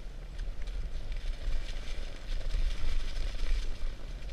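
Dogsled running fast over packed snow: the runners scrape and hiss and the sled rattles and crackles, over a steady low rumble.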